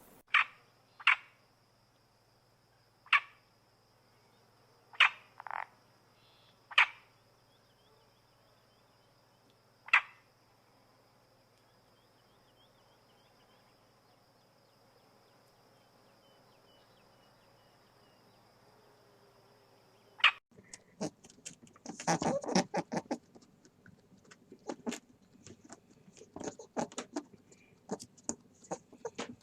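About seven short, sharp animal calls, irregularly spaced, in the first ten seconds over a faint steady high tone. From about twenty seconds in, a different sound: a dense, irregular run of clicks and rustling.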